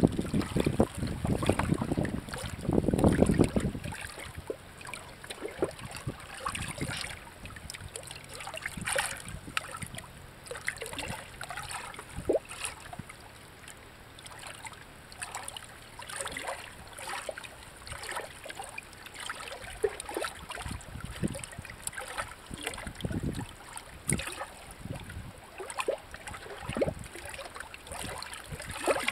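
Shallow water lapping and trickling among shoreline rocks, with many small scattered ticks and splashes. Wind buffets the microphone with a low rumble for the first few seconds, then dies away.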